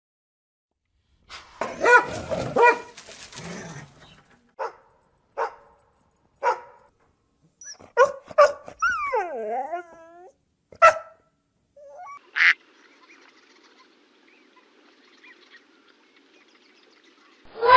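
Dog barking, about nine short separate barks spread over some ten seconds, with a drawn-out whine that bends down and up in pitch about nine seconds in.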